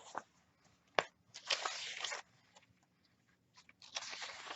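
Paper pages of a handmade junk journal being turned and handled, rustling twice, with a sharp tap about a second in.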